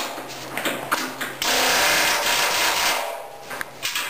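Pneumatic impact wrench (rattle gun) runs in one burst of about a second and a half, driving a lock nut onto a carriage bolt that holds the steel cutting edge to a snowplow blade. Short clicks and knocks of the tool and socket on the steel come before and after the burst.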